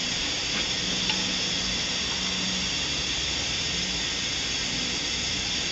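Steady hiss from a cooker running to heat the hot water bath canner, with a faint low hum that comes and goes.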